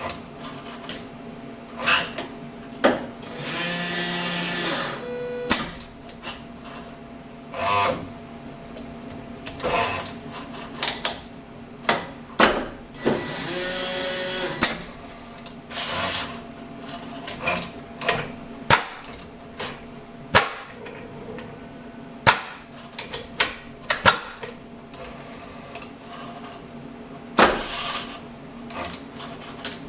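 Industrial CNC milling machine running its automatic tool changer and power drawbar: a steady hum with many clicks and knocks, and two longer noisy bursts, about four and thirteen seconds in.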